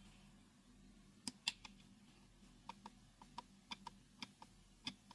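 Faint, quick clicks of computer input, about a dozen, many in close pairs, as the moves of a Go game record are stepped through on screen. A faint steady hum lies under them.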